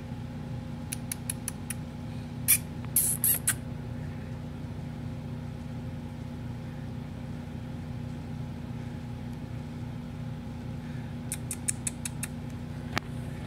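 Steady low hum with short clusters of sharp little clicks from a grey kitten licking and grooming its paw on a desk. One cluster comes between one and four seconds in, another near the end.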